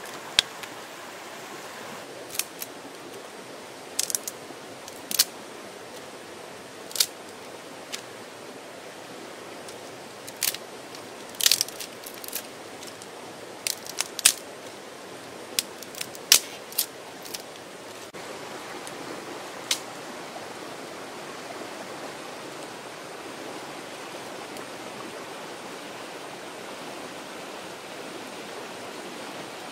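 Dry wooden sticks clacking and snapping as they are handled and broken over stones: irregular sharp cracks, about fifteen in the first two-thirds, then none. Under them, the steady rush of a nearby stream.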